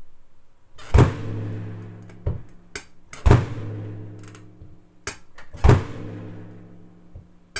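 Bass drum struck by a kick-pedal beater in three separate strokes, about two and a half seconds apart, each leaving a ringing low tone that fades before the next. Fainter knocks come between the strokes, the kind of accidental beater contact made while setting up the next stroke.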